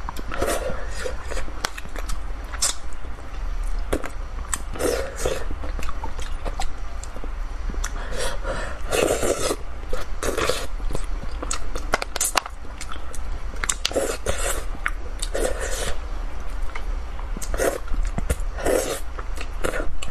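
A person chewing and slurping mouthfuls of spicy braised fish in sauce close to the microphone, in irregular wet bursts with sharp clicks about every second.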